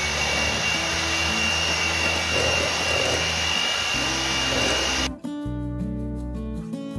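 Electric hand mixer running steadily with a high whine, its beaters creaming butter and icing sugar in a glass bowl. It cuts off abruptly about five seconds in, leaving background guitar music.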